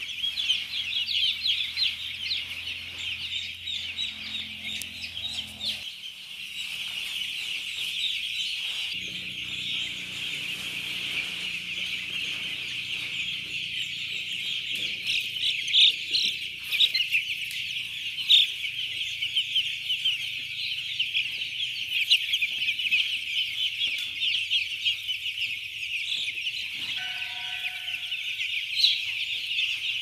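A large flock of day-old chicks peeping continuously, hundreds of high-pitched cheeps overlapping into one dense chorus, with a faint low hum underneath.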